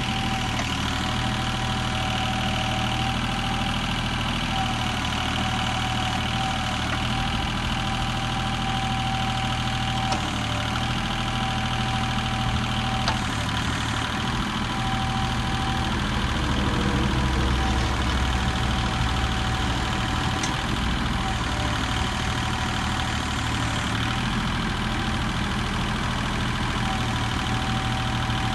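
John Deere 850 compact tractor's three-cylinder diesel engine idling steadily, a little louder for a few seconds past the middle.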